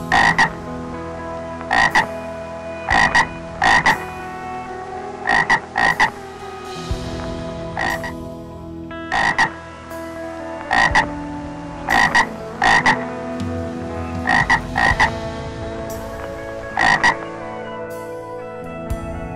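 Frogs croaking: short, loud calls repeated every second or so, often two in quick succession, over a steady background of held tones.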